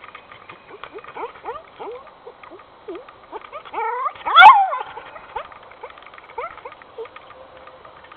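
A dog whining in a string of short, falling whimpers, with one much louder yelp about halfway through.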